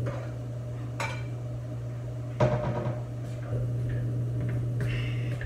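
Dishes clinking as a bowl is taken out of a kitchen cabinet: a few sharp knocks and clatters, the loudest about two and a half seconds in, over a steady low hum.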